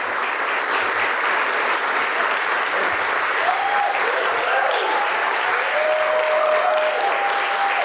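Audience applauding steadily, with a few held voice-like tones rising over the clapping in the second half.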